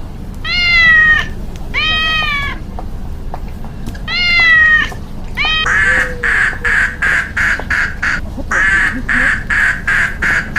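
Three drawn-out meows from a cat, each rising then falling, in the first half. These are followed by a duck quacking rapidly, about three to four quacks a second, with a short break in the middle.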